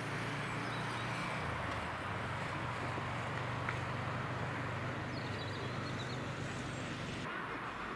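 Steady outdoor background noise with a low hum, and faint high bird chirps about half a second in and again around five seconds in. The background changes abruptly near the end.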